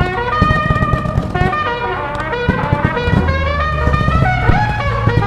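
Instrumental music led by brass instruments playing a melody.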